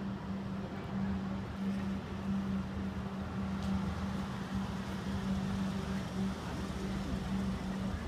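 Outdoor road traffic with a steady low hum running underneath.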